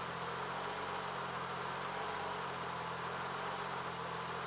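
Lexus SC300's 1JZ inline-six idling steadily, running again on a fresh set of spark plugs after its no-start.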